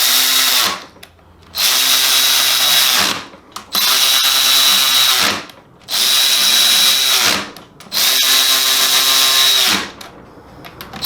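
A power drill driving in the bolts that close up a Quaife sequential transmission case. It runs in about five bursts of one to two seconds each, and each whine drops in pitch as it winds down.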